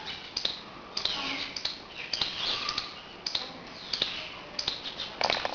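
Blue-and-gold macaw making a run of short chirps that fall in pitch, mixed with sharp clicks, with a quick cluster of clicks near the end.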